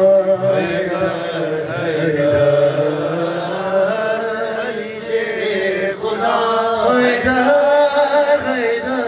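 Male reciter chanting an Urdu manqabat (devotional praise poem) into a microphone, drawing each line out in long, held, ornamented notes.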